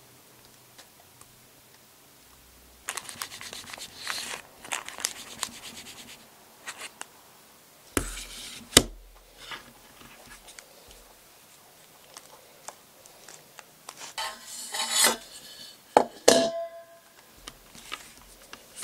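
Parchment paper rustling and crinkling as a lined metal cake pan is handled, with a sharp knock of the pan on the counter about nine seconds in. Near the end come two more knocks, the second with a short metallic ring.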